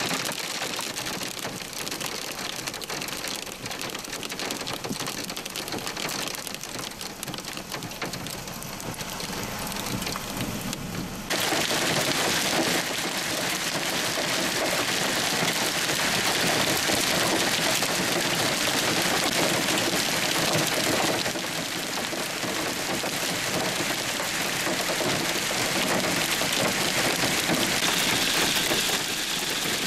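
Hail and heavy rain pelting down as a dense, steady hiss and patter. It jumps suddenly louder about a third of the way in.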